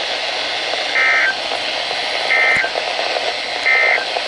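Emergency Alert System end-of-message code from a NOAA Weather Radio broadcast: three short, identical bursts of two-tone digital data screech, about a second and a half apart, over steady radio hiss. The bursts signal that the warning message is over.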